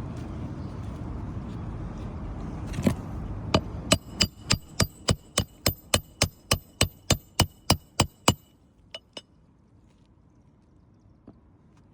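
Hammer driving a roofing nail into asphalt shingles: a fast run of about seventeen ringing metal strikes, three or four a second, then two more after a short pause. Before the hammering, a steady rushing noise.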